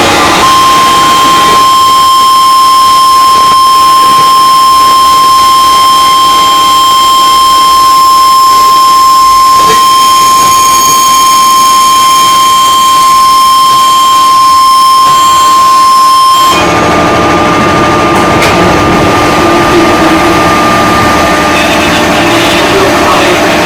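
Onboard sound of a JR 205 series electric commuter train: a steady high-pitched whine with several fainter higher tones over the running noise, the strange sound the uploader cannot explain. About two-thirds of the way through the whine cuts off suddenly and a slightly higher, weaker tone carries on over a heavier low rumble, then stops a few seconds before the end.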